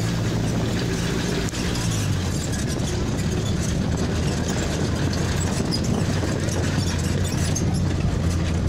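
Motor vehicle's engine running steadily on the move, with road and wind noise; its note drops a little about two seconds in.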